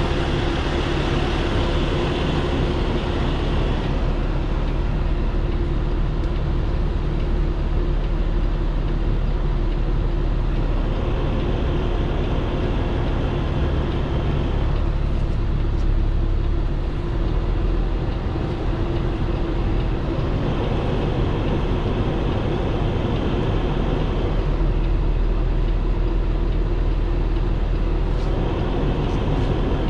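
Heavy truck's diesel engine running steadily at low speed, heard from inside the cab as it tows a trailer. A hiss swells and fades every several seconds over the engine.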